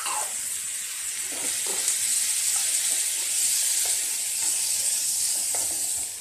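Chopped onions and tomatoes sizzling steadily in hot oil in a nonstick frying pan, with a few light scraping strokes as a wooden spatula stirs them.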